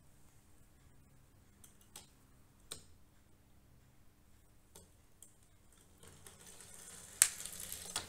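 Small toy car rolling down a wooden ramp onto a glass tabletop: a few scattered light clicks, then about two seconds of rattling roll with a sharp click a little past seven seconds and another near the end.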